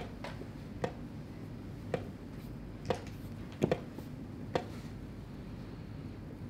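Wooden chess pieces being set down on a wooden board and a chess clock being pressed in quick alternation during blitz play: seven sharp knocks, about one a second, including a close double knock about three and a half seconds in.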